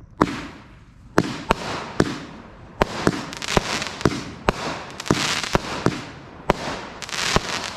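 Big Fireworks 'Dirty Deed' seven-shot 200-gram cake firing: a quick, irregular series of sharp bangs as the shots launch and burst overhead, with a hiss between the bangs.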